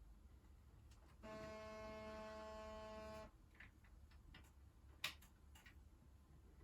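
A steady buzzing hum with an unchanging pitch, starting about a second in and lasting about two seconds, followed by a few faint clicks and one sharp click.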